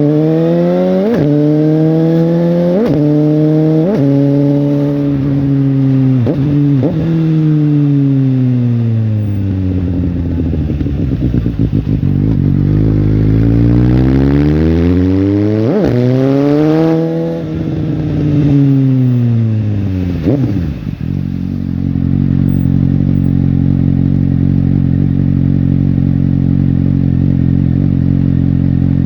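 Suzuki GSX-S750's inline-four engine pulling through the gears, its pitch climbing and dropping sharply at three quick upshifts. It then falls away on deceleration with short blips, pulls up once more with another shift, slows with a further blip, and settles to a steady run for the last several seconds.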